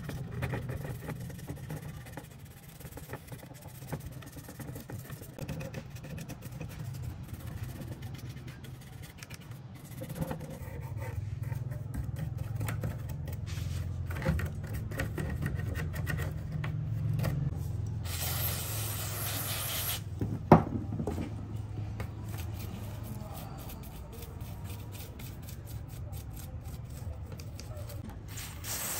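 Small bristle brush scrubbing over a computer motherboard in short strokes, with a low steady hum underneath. About two-thirds of the way through comes a brief hissing burst, then a single sharp knock.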